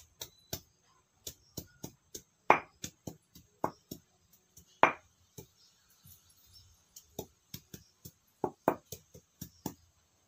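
Vegetable being cut against an upright kitchen blade: a series of short, sharp chopping clicks, a few a second and unevenly spaced, with a few louder strokes.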